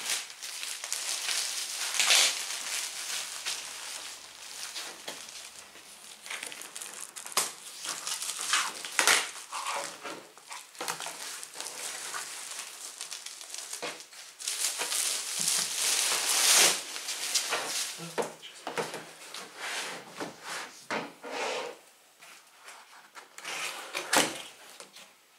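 Plastic shrink-wrap being torn and peeled off a cardboard book box and crumpled, in irregular bursts of crinkling and crackling with a few sharp clicks from handling.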